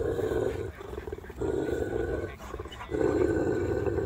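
Kangal shepherd dog growling low in three long stretches of about a second each, with short breaks between them, as two dogs meet nose to nose.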